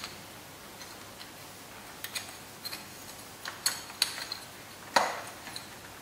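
Small metal clicks and taps as an aluminium filter base plate with its bolts and spacers is handled and fitted onto a small carburettor: scattered light ticks, with a louder knock just before five seconds in.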